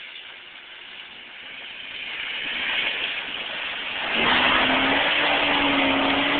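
Old Ford F-150 pickup's engine revving hard as the truck climbs a steep, muddy hill. It grows louder as the truck nears, then from about four seconds in it is loud and steady as the truck passes close by.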